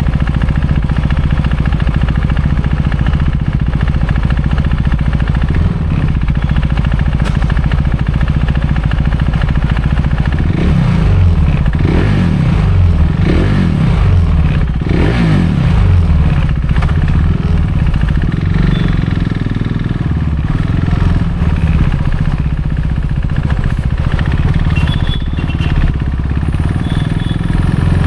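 KTM RC390's single-cylinder engine through an aftermarket barrel exhaust with the dB killer removed, running loud while riding, with several rises and falls in engine speed from about ten to sixteen seconds in.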